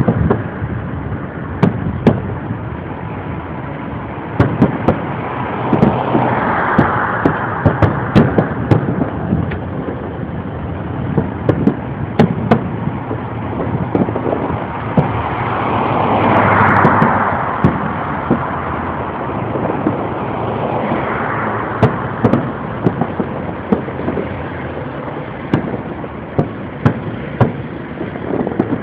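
Fireworks display: many sharp bangs and pops from bursting shells, some in quick runs, over a steady rumbling noise. Longer swelling hisses come about six, sixteen and twenty-one seconds in.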